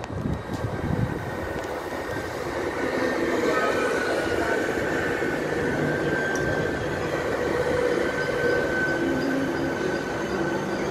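Passenger train running, heard from on board: a steady rumble with a faint high whine holding through the middle.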